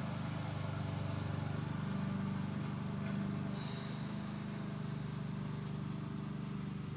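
A steady, low mechanical hum, like an engine idling, with no change in pitch or level.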